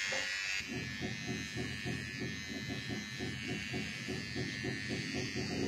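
Electric hair clippers buzzing as they shave a head down to the scalp, with a quick even pulsing, about four or five a second.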